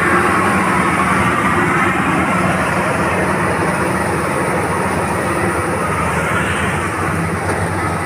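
GAM Ruilong tracked combine harvester cutting and threshing rice close by: a loud, steady mechanical drone of its engine and machinery.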